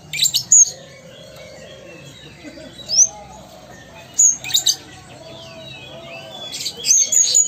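Caged kolibri ninja (Van Hasselt's sunbird) singing in its readily singing ('gacor') state: several short bursts of sharp, high chirps and twitters, with a quick rising whistled note about three seconds in and a denser burst near the end.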